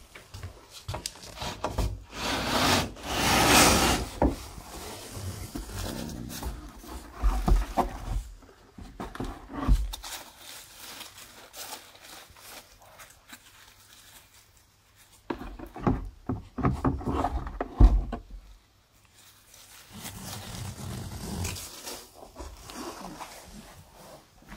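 Rustling and bumping of a handheld phone camera being moved about while a boa constrictor is handled inside its terrarium, with a long loud breathy noise about two seconds in and several dull thumps later on.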